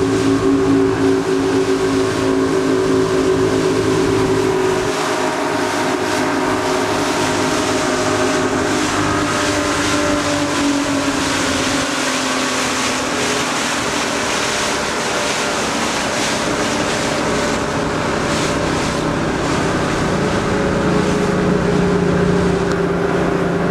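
Motorboat's twin outboard engines running steadily. The engine note drops about five seconds in, and a lower hum comes up near the end.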